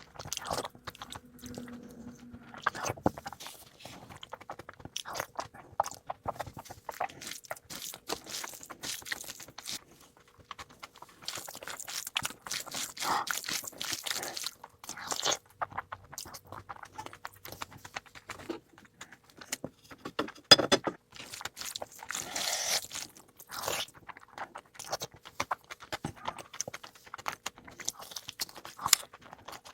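Close-miked eating sounds of a rice and meat curry meal: chewing and biting, with many short, irregular crunches and mouth clicks. The loudest single crunch comes about two-thirds of the way through.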